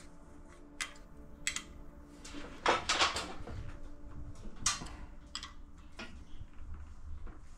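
Metal parts and tools being handled on a workbench: scattered clinks and knocks, the loudest cluster about three seconds in, over a faint steady hum.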